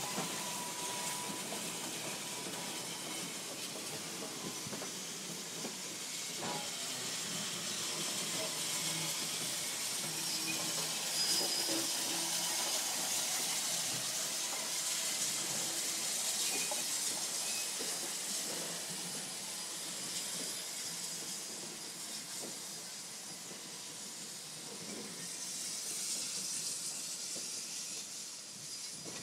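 Santa Fe 3751, a 4-8-4 Northern steam locomotive, rolling slowly with a steady hiss of steam.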